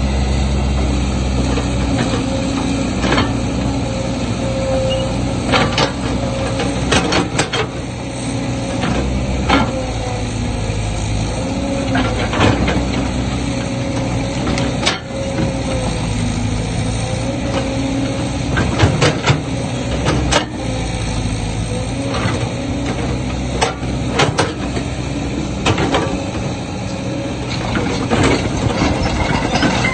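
Diesel engine of heavy earth-moving machinery running steadily under a wavering whine, with sharp metallic clanks and knocks scattered throughout.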